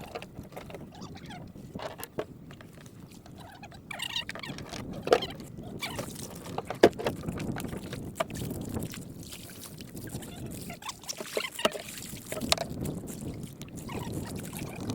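Water splashing around a small boat, with irregular knocks and clicks against its hull as it is washed down.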